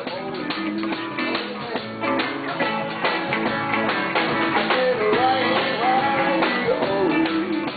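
A live band playing guitar-led rock and roll, with a lead line that bends up and down in pitch.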